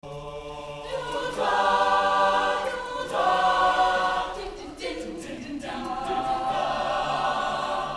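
Mixed-voice a cappella choir singing held chords in about three swelling phrases, with short breaks between them.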